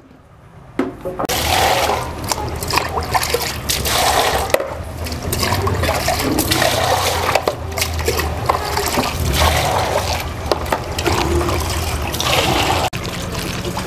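Water pouring and sloshing as soaked dried white peas are rinsed in a vessel, starting about a second in.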